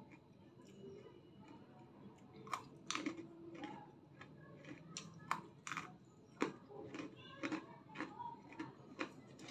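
Dry breadsticks being bitten and chewed close to the mouth: a run of sharp, irregularly spaced crunches, about eight or nine in all, mostly in the second half.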